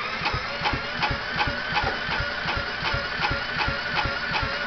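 Electric drill whining as it spins the Kawasaki FC150V single-cylinder engine of a John Deere JX85 mower, with steady thumps about four times a second as the engine turns over without catching.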